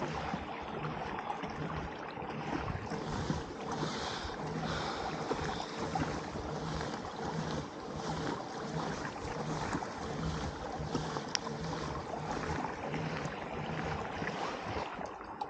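Fishing kayak under way: water washing along the hull, with a low rhythmic thump about every 0.7 s from the pedal drive.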